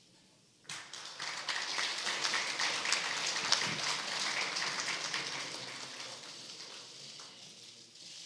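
Audience applauding. The clapping starts suddenly just under a second in, is strongest over the next few seconds and then slowly dies away.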